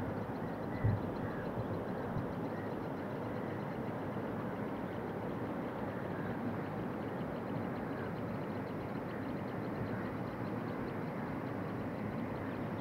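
Steady rush of water flowing over the dam's weir and spillway, an even noise with no breaks.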